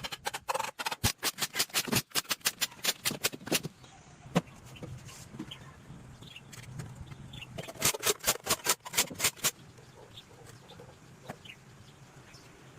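Two runs of rapid sharp taps, about five a second, the first in the opening few seconds and the second about eight seconds in, over a faint low hum.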